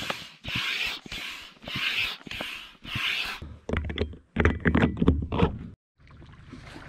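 Hand pump inflating an inflatable stand-up paddle board: regular hissing puffs of air, a little under two a second, for about the first three and a half seconds. Then clicks and rubbing as the board's air valve is handled, and near the end a faint steady low noise.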